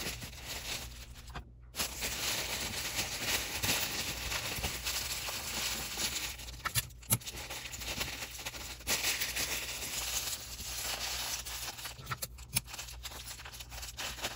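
Tissue paper rustling and crinkling as it is folded and pressed around small items, with a few sharp taps.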